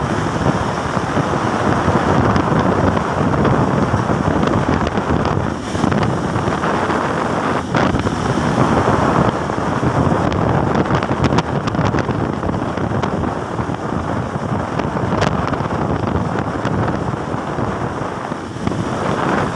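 Wind buffeting the microphone of a phone carried on a vehicle moving at road speed: a loud, steady rush of noise.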